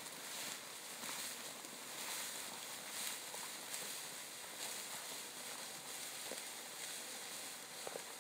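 Footsteps and the swish of tall dry grass as several people walk through it, a soft, steady rustling with faint ticks.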